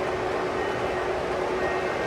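O scale model train running on layout track: a steady rumble of wheels on rail and motor, with a few constant humming tones.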